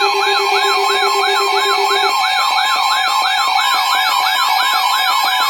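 Electronic alert siren, its pitch sweeping up over and over at about four times a second, over steady alert tones: the alarm that comes before a severe thunderstorm warning broadcast. A lower steady tone drops out about two seconds in.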